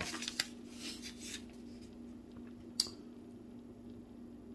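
A small toy car being handled: a few light clicks and rubbing noises, mostly in the first second and once more near three seconds in, over a steady low hum.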